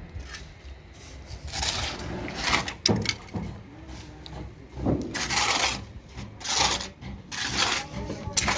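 Repeated rough scraping strokes, each about half a second to a second long, coming irregularly about once a second, with a few sharp knocks between them.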